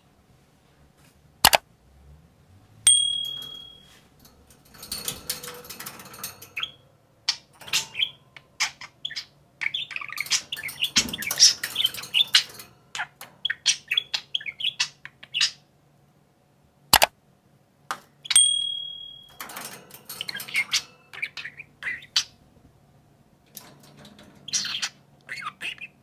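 Budgerigars chirping and chattering in quick, irregular bursts, with a short steady whistle twice and two sharp clicks.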